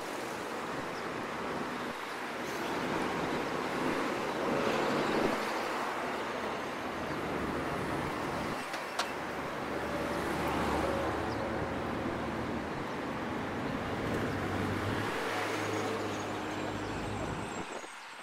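City street traffic: cars passing, with engine and tyre noise. A low engine hum is prominent through the second half and drops away near the end. There is a single sharp click about nine seconds in.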